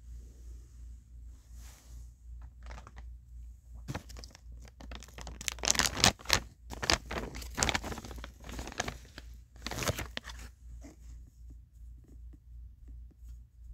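Rustling and crackling, as of something crinkly being handled, for several seconds in the middle, loudest about six seconds in and again near ten, over a low hum that pulses steadily.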